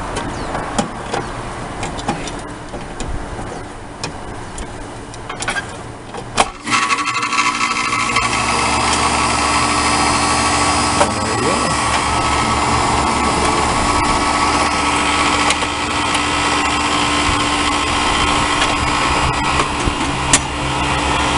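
York central air conditioner's condensing unit starting up about six and a half seconds in, after a sharp click at the electrical disconnect, then running steadily: the newly replaced compressor humming and the condenser fan blowing. A loose fan shroud rattles while it runs.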